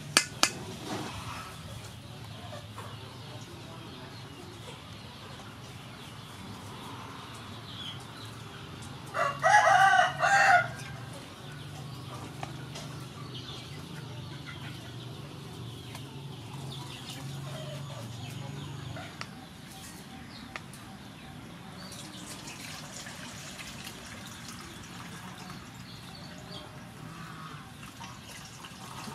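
A rooster crows once, about a third of the way in; the call lasts about a second and a half.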